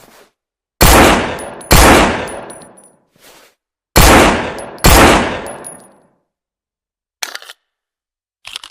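Colt M1911 pistol firing four shots in two quick pairs, each shot with a long echoing tail. There are fainter metallic clicks between the pairs and near the end.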